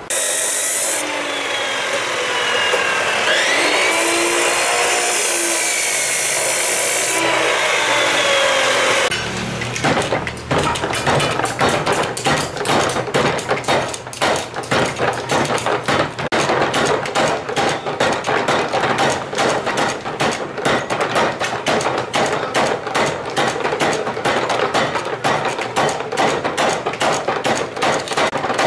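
Mechanical power hammer pounding a red-hot steel blade blank on its anvil die, with rapid, even blows several a second. Before the hammer starts, about nine seconds of noisy metal scraping with wavering squeals.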